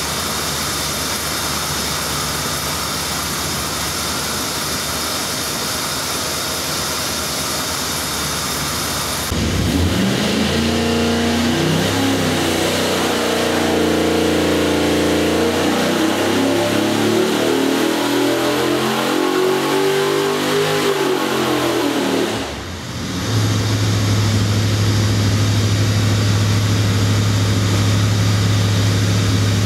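383 cubic-inch stroker built on an LT1 small-block Chevy V8, running on an engine dyno. It runs steadily at first, then from about nine seconds in makes a full-throttle pull with the pitch climbing for about ten seconds. The pitch falls back, and after a brief drop the engine settles into a steady low drone.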